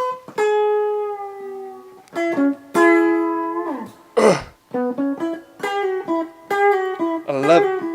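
Guitar playing a short improvised phrase: single plucked notes left ringing, a quick downward slide about halfway through, then bent, wavering notes near the end.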